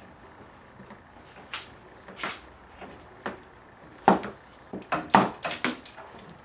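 Hands and a tool clicking and clacking against the oil filter housing cap of a Toyota 1GR-FE V6 as the cap is loosened. A few light knocks come first, then a quick run of sharper clacks after about four seconds.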